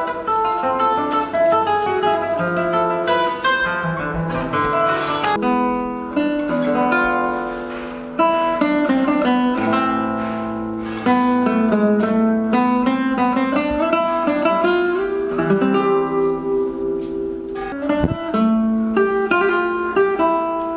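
Nylon-string classical guitar played fingerstyle: a flowing run of plucked single notes and chords that ring on.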